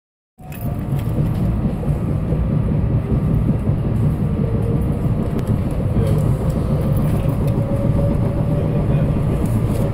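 Steady rumble of a moving commuter train heard from inside the passenger car, its wheels running over the rails.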